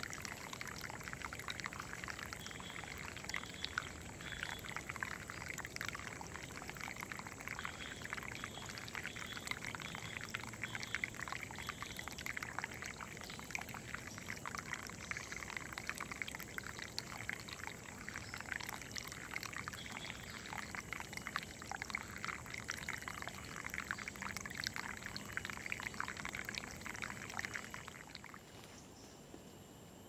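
Small stream of water trickling over a sandy bed, a steady busy babbling patter that fades away near the end.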